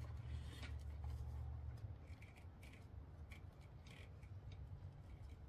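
Faint rubbing and small plastic clicks as a motorcycle ignition-coil wiring plug is worked loose by hand, over a low hum that drops away about two seconds in.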